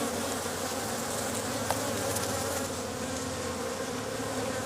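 Steady buzzing of a honeybee colony in an opened hive, the bees working on the frames.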